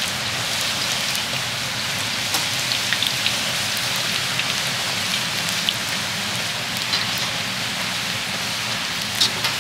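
Corn tortilla pieces deep-frying in hot oil: a steady sizzling hiss full of small crackles and pops as they are stirred to brown evenly. A couple of sharper clicks come near the end.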